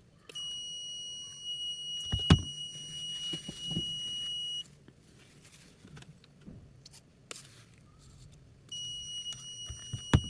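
Electronic buzzer of a rain-sensor alarm sounding a steady high-pitched tone, set off by water on the sensor. It stops about four and a half seconds in and starts again near the end. A single sharp knock comes about two seconds in.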